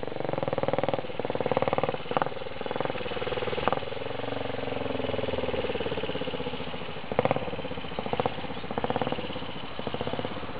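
Single-cylinder four-stroke engine of a 250cc Velocette MOV motorcycle riding away, its note rising and dipping several times as it is revved through the gears.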